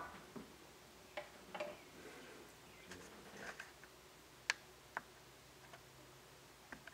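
Faint scattered clicks and taps from a hand lifting a DIY Schick/SME-style tonearm off the record and setting it back on its rest. The sharpest click comes about four and a half seconds in.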